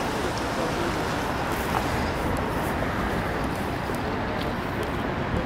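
Steady city road traffic noise, an even rush with no single vehicle standing out.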